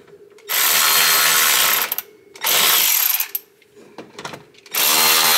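Cordless electric ratchet running in three bursts, each about a second long, with short pauses between them, tightening nuts down onto wiring terminal studs.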